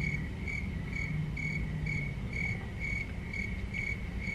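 Cricket chirping: a short, high chirp repeated evenly about twice a second.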